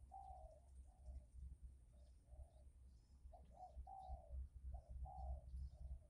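Spotted dove (tekukur) cooing faintly, a run of short, low coo notes in repeated phrases.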